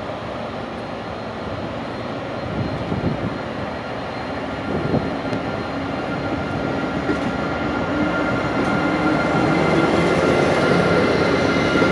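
Pesa Gama SU160 diesel-electric locomotive pulling its train away from a stand, the engine running under load and getting steadily louder as it passes. A steady whine comes in near the end.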